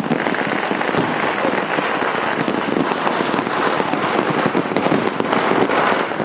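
Dense, unbroken crackle of many firecrackers and fireworks going off all around at once, a constant rattle of small bangs with no pause.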